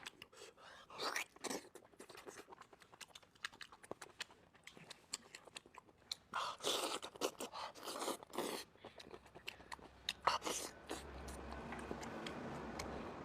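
Close-up chewing and biting of food, with crunches and wet mouth clicks, the bites louder about halfway through. A low steady hum comes in near the end.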